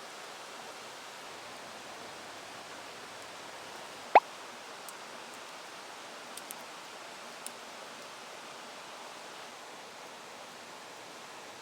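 Wood campfire burning with a steady hiss, one sharp loud pop about four seconds in, then a few small crackles.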